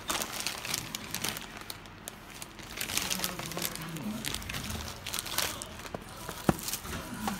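Thin plastic shopping bag crinkling and rustling as it is handled and a boxed phone is slid out of it, with one sharp click near the end.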